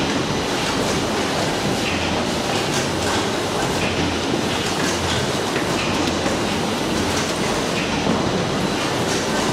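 Carrot packing-line machinery running steadily: a continuous mechanical rattle with a low hum and light clatter.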